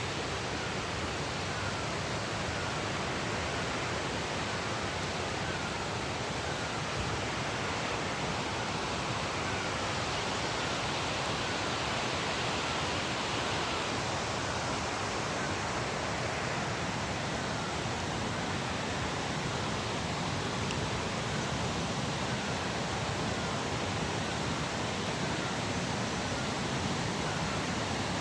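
Steady rush of fast-flowing water, like a mountain stream. A faint short chirp repeats about once a second through it.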